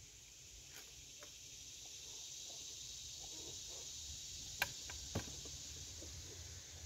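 A steady, high insect chorus that swells a little toward the middle. Two sharp wooden knocks come about a second apart near the middle, as small wooden box pieces are handled and fitted together.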